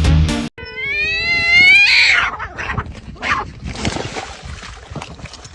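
Music cuts off about half a second in; then a pet animal gives one call rising in pitch for about a second and a half, followed by quieter scattered sounds.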